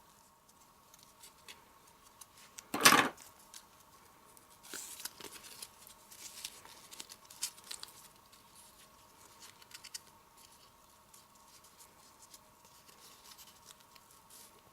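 Paper and ribbon handling: ribbon being pulled through small punched holes in a cardstock band, with soft rustling and small clicks, and one loud thump about three seconds in.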